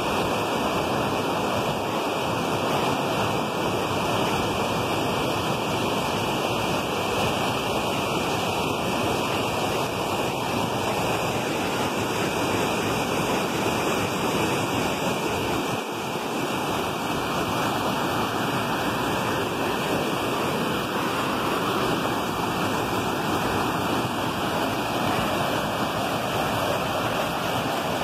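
Swollen, muddy river in flood after heavy rain, rushing and churning over rock ledges in rapids: a steady, loud wash of white water.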